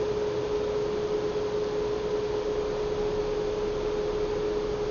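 A steady single-pitched hum, unchanging, over an even background hiss; nothing else happens.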